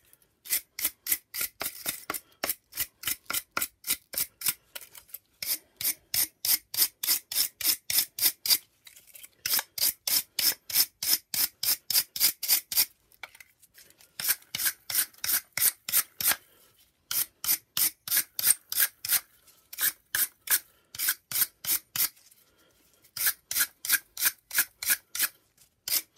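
Small wire brush scrubbed rapidly back and forth over the plastic brushroll of a Shark NV602UK vacuum power nozzle, cleaning it: rasping strokes about four or five a second, in bouts broken by brief pauses.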